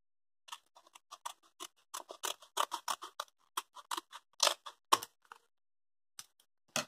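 Scissors cutting open a mail envelope in a quick, irregular run of short, crisp snips, about four a second, that stops about five seconds in, followed by one or two last snips near the end.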